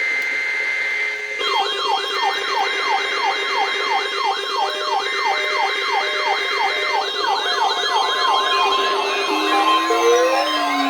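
Several NOAA weather alert radios sounding their alarms at once, set off by the National Weather Service's test broadcast. A steady high tone gives way about a second in to a chorus of overlapping warbling, siren-like sweeps at roughly three a second with steady beeps underneath, and another alarm with falling sweeps joins near the end.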